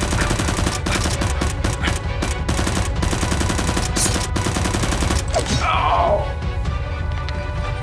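Rapid automatic gunfire sound effects over background music, standing in for Nerf blaster shots. The firing stops about five seconds in and is followed by a short falling sweep while the music carries on.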